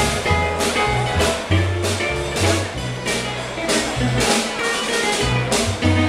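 Upbeat band music with a bass line stepping from note to note and a steady drum beat, roughly three beats every two seconds.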